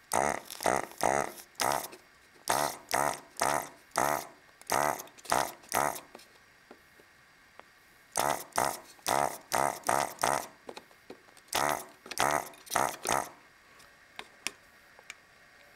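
Hakko FR-300 desoldering gun's built-in vacuum pump buzzing in short bursts, about two to three a second, as the trigger is pulsed to suck solder off transistor leads. The bursts come in two runs with a pause between, and a few faint clicks near the end.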